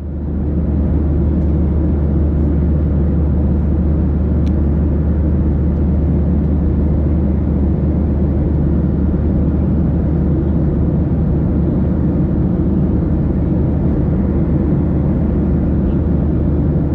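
Steady cabin noise of a Boeing 737-800 in flight: a constant low rumble of engines and airflow. It fades up over the first second, then holds even.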